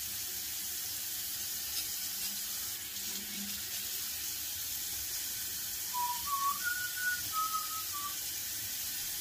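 Water running steadily from a bathroom tap into the sink during a rinse-off. About six seconds in, a short whistled tune of about five notes rises and then falls.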